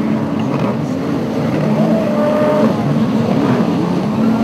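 Engines of several racing sit-down jet skis running hard, overlapping, their pitch rising and falling as the riders work the throttle through a buoy turn.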